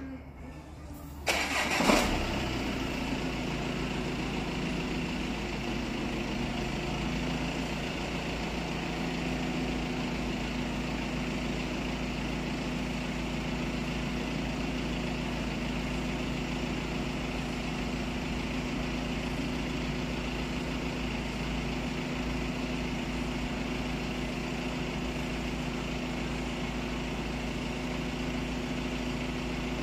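A 2016 Audi A6's engine being remote-started: a short burst of cranking about a second in as it catches, then running at a steady idle.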